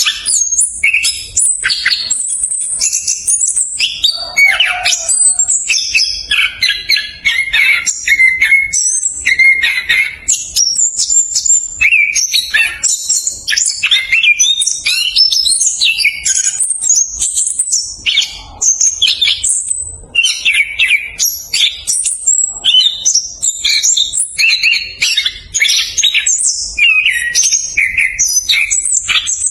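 Chestnut-capped thrush (anis kembang) singing a fast, tightly packed rolling song: rapid high notes and trills that follow one another with hardly a break.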